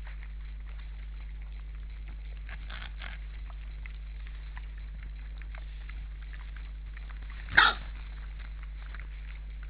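Wild boars feeding in snow, with faint scattered rustling and crunching over a steady low hum. One short, sharp animal call, like a bark, comes about seven and a half seconds in and is the loudest sound.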